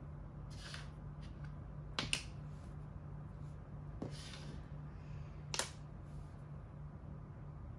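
Plastic Thai chess pieces clicking down on the board and sliding across it as they are moved by hand: a quick double click about 2 s in, a fainter one near 4 s and the sharpest near the end, with a few short scuffs between. A low steady hum runs under it.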